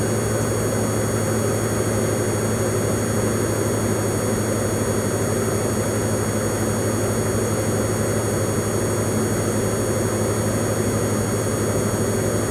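Diamond light aircraft's engine and propeller droning steadily, heard from inside the cabin.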